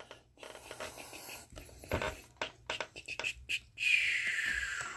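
A trading card being handled with plastic sleeves and a top loader: scratchy rustling and a quick run of small clicks and taps, then a longer sliding swish, falling in pitch, about four seconds in, as the card slides in or out of its holder.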